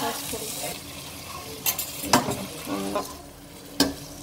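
Metal spoon stirring thick mushroom masala in a stainless steel pot over a frying sizzle, knocking sharply against the pot about three times.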